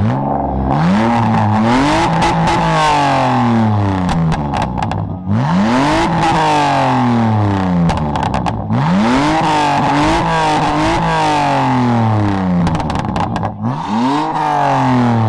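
Car engine revved hard again and again, heard at the exhaust: each rev climbs in pitch and slides back down, several times over.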